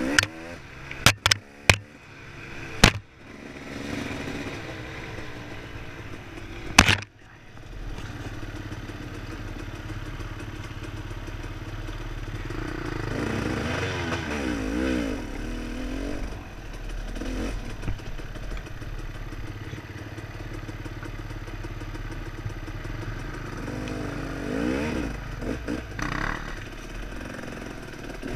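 Enduro dirt bike engine running under a rider on a rough trail, rising and falling in revs twice, around the middle and again near the end. Several sharp knocks and clatters come in the first three seconds, with a loud one about seven seconds in.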